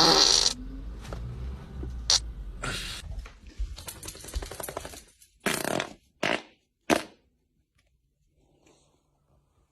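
Loud farts: a long blast right at the start, then three short ones in quick succession about five to seven seconds in.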